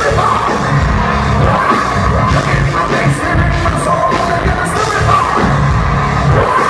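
Loud live rock band playing, with a singer's vocals into a microphone over drums and cymbal hits.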